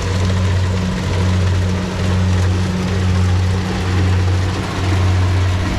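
Engine of a rice combine harvester running: a steady low drone that swells and eases about once a second, with a broad wash of machine noise over it.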